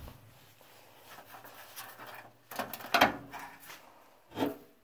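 Old Craftsman steel toolbox being handled: a drawer sliding and metal knocks, the loudest about three seconds in.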